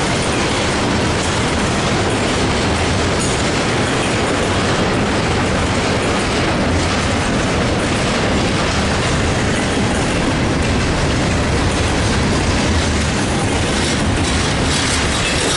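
Double-stack intermodal freight train rolling past, its well cars' wheels on the rails making a steady, loud running noise with clickety-clack.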